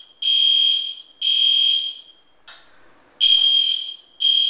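Loud hotel smoke alarm sounding a high steady-pitched evacuation pattern: long beeps about a second apart in groups of three, with a pause between groups. It was set off by smoke from food burning in a skillet.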